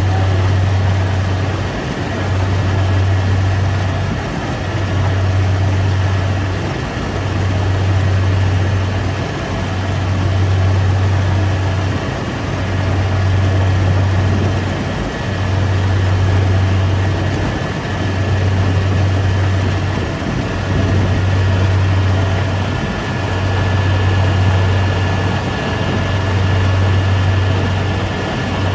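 Rice combine harvester running as it cuts: a loud deep engine hum that dips briefly about every two seconds, with a steady high whine above it and a mechanical rattle under everything.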